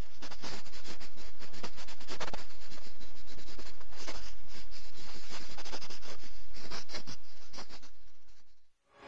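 Scratchy crackling sound effect: dense, irregular clicks and scratches over a low hum. It fades in over the first second and fades out shortly before the end.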